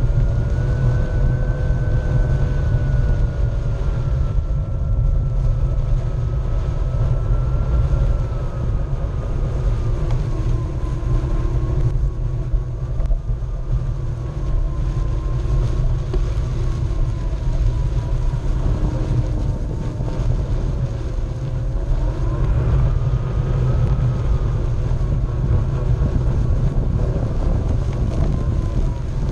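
Onewheel electric board's hub motor whining, its pitch drifting up and down with speed, over a steady low rumble of the tyre rolling on grass and wind on the board-mounted microphone.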